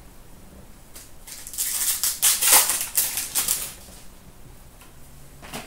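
Trading-card pack wrapper being torn open and crinkled by hand: a burst of crackling starting about a second in and lasting a couple of seconds, with one click near the end.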